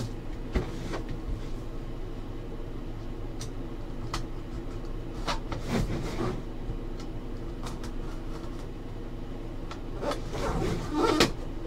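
A small blade slicing the seal on a boxed trading-card box, heard as scattered light clicks and scrapes over a steady hum, with louder handling noise of the box near the end.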